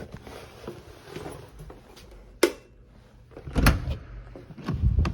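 A few sharp knocks and thumps over low rustling, like a door or cupboard being handled, with the loudest two near the end.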